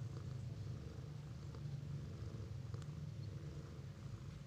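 A cat purring steadily while its newborn kittens nurse.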